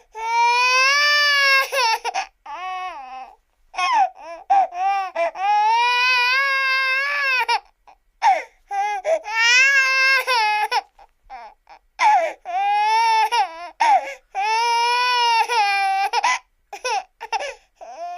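Baby crying sound effect: long, loud wailing cries of a few seconds each, whose pitch bends up and down, broken by short gasping sobs between them.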